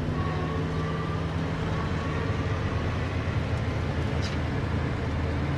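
Cartoon engine sound effect of vehicles driving slowly: a steady, low, even engine hum.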